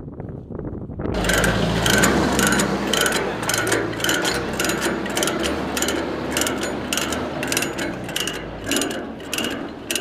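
Ratchet chain load binder being cranked to tighten a vehicle tie-down chain: a steady run of ratchet clicks, about two a second, starting about a second in.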